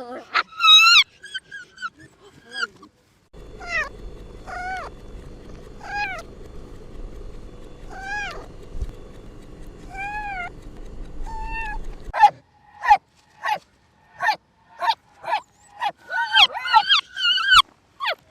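Cat meowing over and over, short rising-and-falling meows about a second apart, over a low background hum. Shorter animal cries come before and after.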